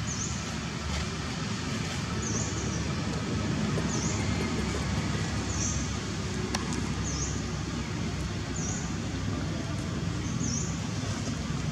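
Outdoor ambience: a steady low rumble like distant road traffic, with a short high chirp repeating about every one to two seconds.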